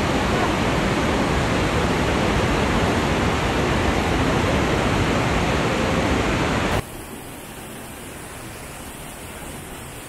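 The Rhine Falls' rushing water: a loud, steady, even wash of falling and churning water. About seven seconds in it cuts abruptly to a quieter recording of the falls.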